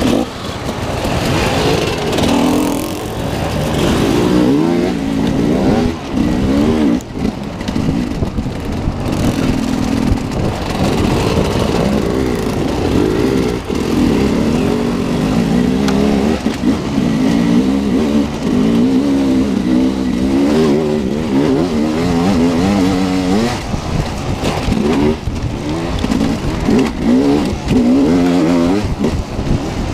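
Enduro dirt bike engine heard on board as it is ridden over a trail, revving up and down over and over with the throttle, its pitch constantly rising and falling.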